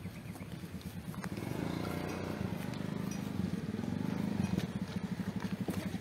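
An engine running with a steady fast pulse, swelling louder with its pitch rising and falling for a few seconds in the middle.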